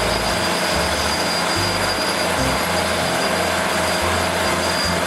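Large Komatsu crawler bulldozer running steadily as it pushes a pile of soil: a dense, even machine noise with a thin high whine over a shifting low rumble.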